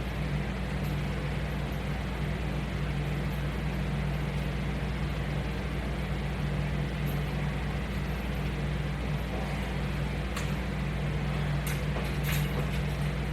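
Steady low hum over a constant hiss, with a few faint clicks near the end.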